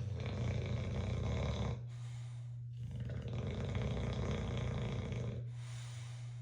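Bulldog snoring in its sleep: two long snores, the first at the start and the second about three seconds in, with a quieter breath between.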